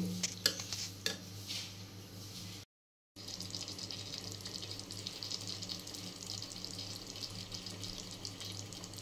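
Spiced potato, capsicum and onion sabzi sizzling steadily in a kadhai on a low gas flame, the masala cooking down and its water drying off. A few clicks of a ladle against the pan in the first second or so.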